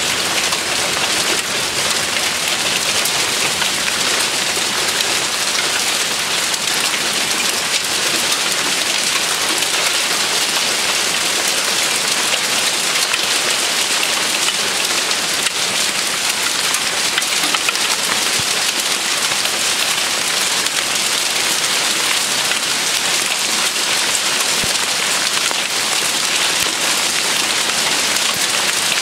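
Hail falling on large kale leaves and garden soil, a dense, steady patter of many small ticks.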